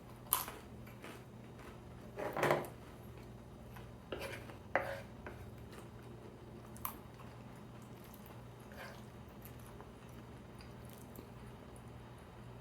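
Eating at close range: a few sharp clicks of cutlery against a plate or container, a longer scraping, crunching sound about two seconds in, and quieter chewing between, over a faint steady low hum.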